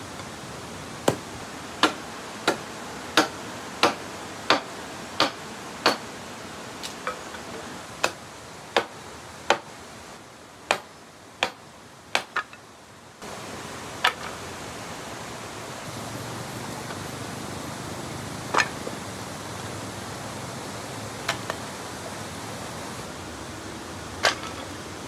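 Pieces of split firewood tossed one after another onto a woodpile, each landing with a sharp wooden clack: about one and a half a second at first, then fewer and farther apart toward the end, over a steady hiss.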